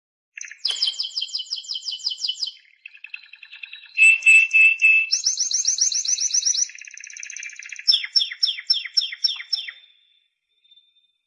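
Timbrado canary singing a long song. It runs through rapid trills of repeated falling notes, a loud steady rolling phrase about four seconds in, and a closing run of slower falling notes that stops about ten seconds in.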